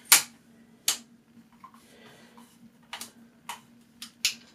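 Flat iron being handled while curling hair: about six sharp, irregular clicks as its plates clack together and shut on the hair, the loudest right at the start.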